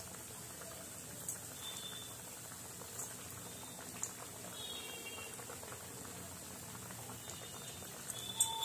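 Batter-coated bread pakoras deep-frying in hot oil, a steady sizzling with a few faint ticks. Near the end a hand slides another pakora into the oil, with a sharper sound as it goes in.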